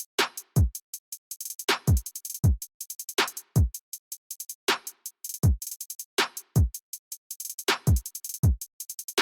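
Electronic background music with a steady drum-machine beat: deep kick drums that drop in pitch, sharp snare-like hits and fast hi-hat ticks.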